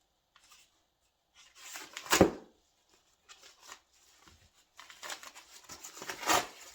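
A mail package being torn open by hand, with ripping and rustling of the packaging. There is a sharp rip about two seconds in, then a longer stretch of rustling and tearing in the second half.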